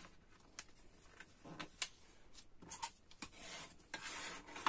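A sheet of paper rustling and crackling as it is folded by hand, then a plastic ruler rubbed along the fresh crease to press it flat, a scraping sound that lasts about the last second and a half.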